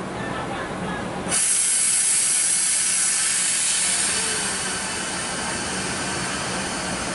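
Sudden loud hiss of compressed air released from an ALS Mercedes-Benz OH 1526 coach's pneumatic system, starting about a second in and easing to a softer steady hiss after a few seconds. A steady low hum runs underneath.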